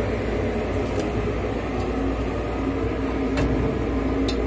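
An engine running steadily with an even, low drone, with a few faint metallic clicks from hand tools.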